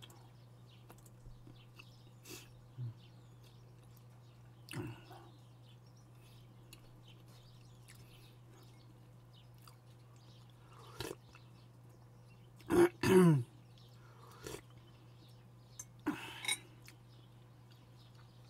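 A person clearing their throat loudly in two quick bursts about two-thirds of the way in, with a smaller burst a few seconds later. Scattered faint clicks and taps over a steady low hum.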